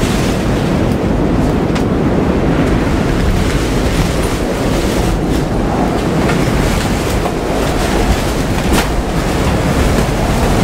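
Tropical cyclone wind and heavy rain buffeting a sailboat's canvas cockpit enclosure, heard from inside: a loud, steady, low rushing noise with wind blasting the microphone. A few sharp knocks stand out, one about two seconds in, one about five seconds in and one near nine seconds.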